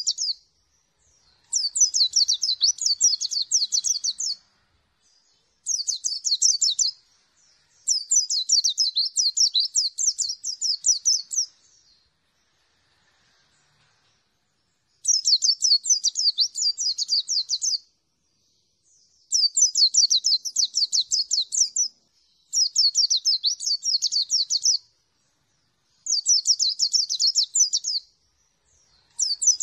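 A caged white-eye singing in repeated bouts of rapid, high twittering notes, each bout lasting one to four seconds, with short pauses between them and one longer pause about halfway through.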